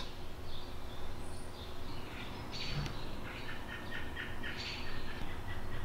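Motor oil pouring from a quart bottle through a plastic funnel into the engine's filler, a soft steady trickle, with birds chirping faintly in the background, most in the middle of the stretch.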